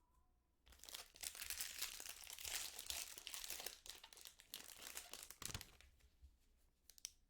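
Foil wrapper of a trading-card pack being torn open and crinkled, a dense crackling from about a second in to about five and a half seconds, followed by a few light clicks.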